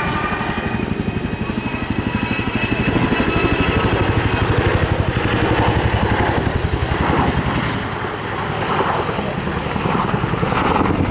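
Boeing CH-47 Chinook tandem-rotor helicopter in flight: the rapid, even beat of its two rotors, with a high turbine whine from its twin turboshaft engines that drops slightly in pitch. The sound swells in the middle and again near the end.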